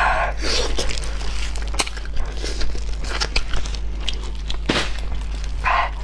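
Close-miked eating of braised pork trotter: wet biting and tearing of sticky skin and meat, with plastic gloves crinkling as the hands pull pieces apart and reach into the bowl. Irregular sharp clicks and smacks throughout, with one stronger knock a little before five seconds in.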